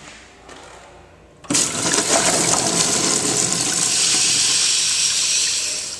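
Wall-hung urinal flushing: a loud rush of water starts suddenly about a second and a half in, runs steadily, and eases off near the end.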